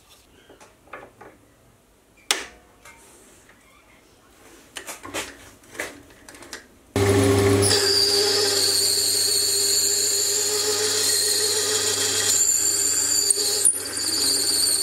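Light clicks and knocks of metal parts being handled in a lathe chuck, then, about seven seconds in, a Sieg C3 mini lathe starts to be heard running on its original fixed-speed motor while its tool cuts belt grooves into a pulley blank. The running is a steady low hum with high, steady whining tones, with a couple of brief changes and a click near the end.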